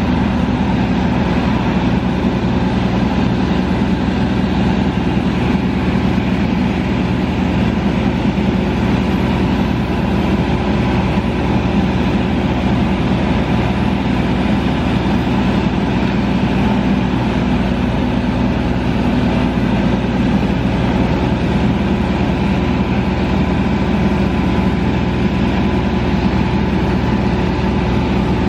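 Atlas Copco ROC F9CR crawler drill rig's Caterpillar C9 diesel engine running steadily and driving the hydraulics as the drill boom is swung, with steady whining tones over the engine noise.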